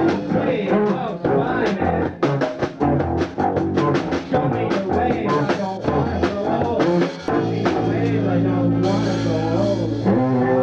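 Rock band playing live, drums and guitar with bass, loud and steady. There is a run of quick drum hits through the middle, then long held chords with a cymbal wash near the end.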